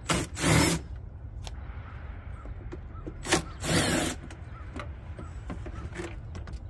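Cordless drill-driver with an 8 mm socket on an extension backing out the screws of the plastic air-filter housing cover: two short runs about three seconds apart, each a quick blip of the trigger followed by about half a second of spinning.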